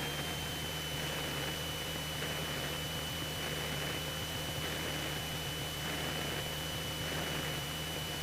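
Cabin noise of a Cessna 172SP on final approach: the four-cylinder Lycoming engine and propeller make a steady low drone under a hiss, with a thin high whine held throughout.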